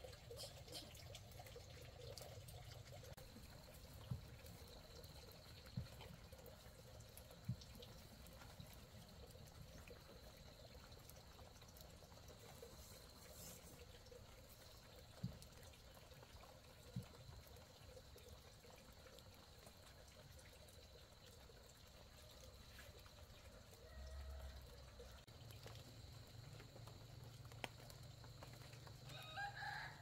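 Near silence: faint outdoor ambience with a thin steady high whine, a handful of scattered light knocks, and a short pitched call right at the end.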